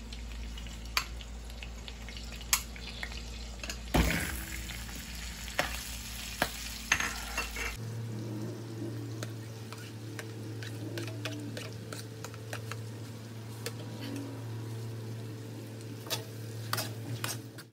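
Butter and oil sizzling in a metal wok on a gas stove, with a metal ladle clinking and scraping against the pan a few times, loudest about four seconds in.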